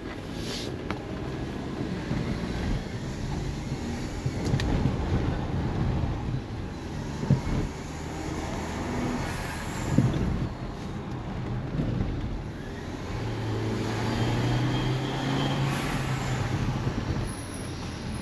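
Citroën DS5's turbocharged engine pulling the car along on a short drive, its pitch rising and falling with the throttle, then holding a steady hum near the end, over road noise.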